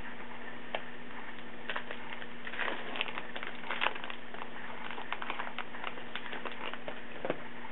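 Crinkling and crackling of a baseball card pack's wrapper and the cards being handled: a string of small irregular crackles, a little busier in the middle.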